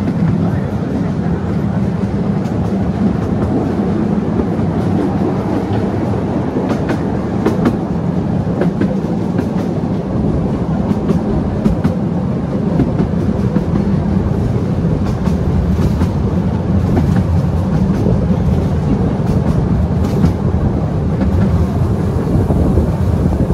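A 12-inch-gauge miniature railway train running, heard from an open carriage: a steady low rumble of the train rolling along the track, with scattered clicks from the wheels on the rails.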